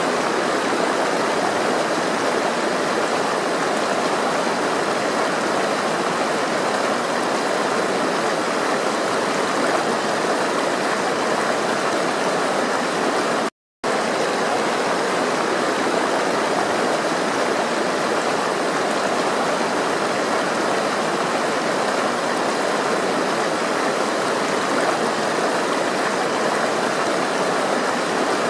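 Flowing water rushing steadily, a dense even sound like a stream. It drops out to silence for an instant about halfway through, then resumes unchanged.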